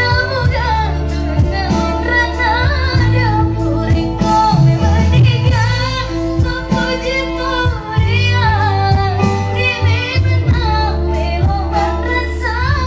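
A woman singing a melodic pop song with a live band of electric guitars and bass, amplified through an outdoor stage sound system, with a heavy, booming low end.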